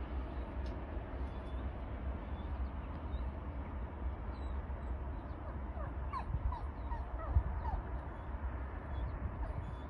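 Wind rumbling on the microphone, with a crow cawing several times in quick succession just past the middle and small birds chirping faintly. A single sharp knock is heard about three-quarters of the way through.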